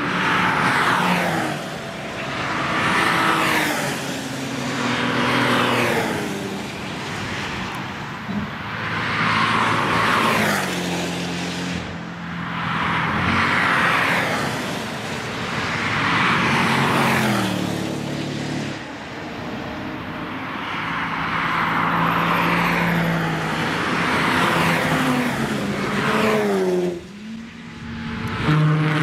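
Cars passing close by at speed one after another, about ten in under half a minute. Each engine note swells and then drops in pitch as the car goes by.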